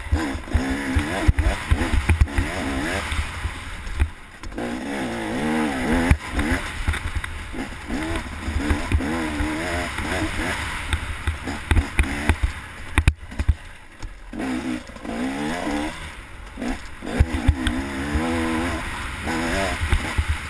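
Enduro dirt bike's engine revving up and falling back again and again as it is ridden over a rough trail, with short lulls when the throttle closes. Wind buffeting and knocks from the bumps on the bike-mounted microphone run underneath.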